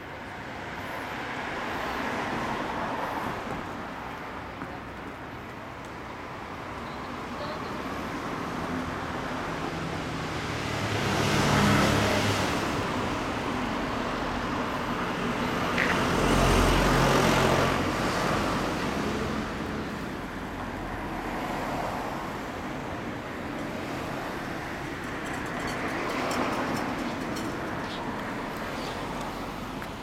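Motor vehicle noise that swells and fades several times, loudest about twelve and seventeen seconds in.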